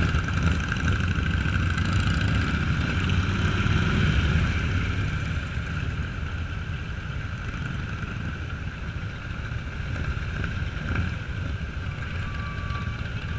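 Motorcycle engine running while riding, a low rumble that is strongest for the first four or five seconds and then eases off and runs quieter.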